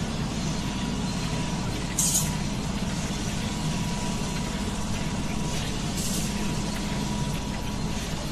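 Low steady mechanical hum, with a faint steady whine above it and two short, sharp hisses about two and six seconds in.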